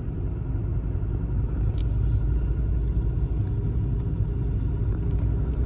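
Low, steady vehicle rumble with a faint engine hum that grows slightly louder. It cuts off abruptly near the end.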